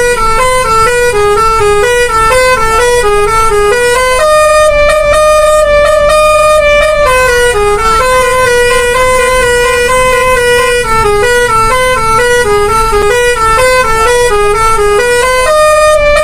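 Seven-trumpet 'telolet' bus air horn playing a quick tune of stepping notes, loud, with a long held note about four seconds in and another near the end.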